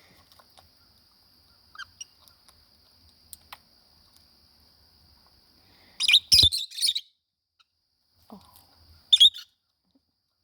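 Lovebirds chirping: a burst of sharp, high chirps about six seconds in and a shorter burst about three seconds later.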